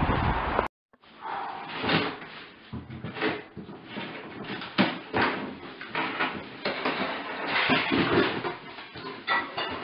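Two Lakeland Terrier puppies playing on and around a cardboard box, making irregular knocks, bumps and scrapes as the box is pushed and climbed on over a tiled floor.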